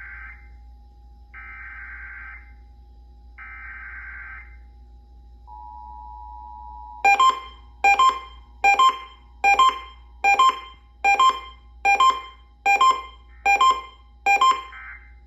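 Emergency Alert System end-of-message data bursts: three short bursts of warbling digital tone, a second apart. They are followed by a steady two-note tone and then a run of about eleven sharp electronic beeps, roughly one every 0.8 seconds, over a faint steady hum.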